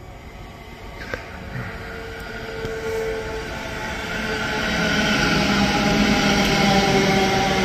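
Thameslink Class 700 electric multiple unit arriving at the platform, growing steadily louder as it draws near and passes, with a whine of several steady tones over the running noise. A brief sharp click sounds about a second in.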